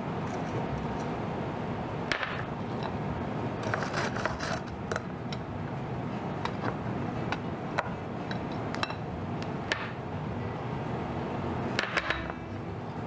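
Dry ingredients being sifted through a metal mesh sieve over a glass bowl: irregular light clinks and taps of the sieve and a spoon against the glass, with small clusters about four seconds in and near the end, over a low steady background.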